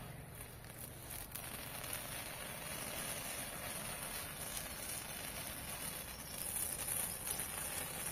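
Burning matchsticks and a firework cracker spraying sparks: a steady hissing fizz that grows a little louder near the end.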